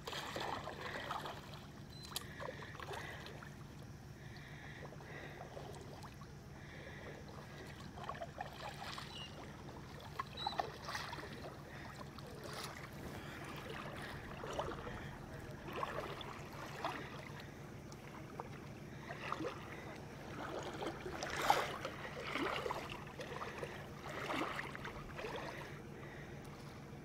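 Faint sounds of a kayak out on the water: irregular small splashes, a few of them louder, over a steady low hum.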